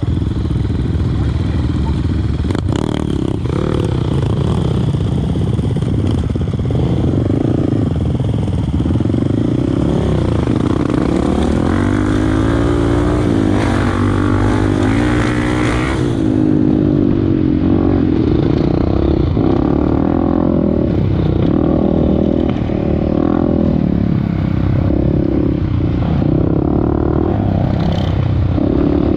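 Off-road motorcycle engine running under way, its revs rising and falling again and again as it is ridden.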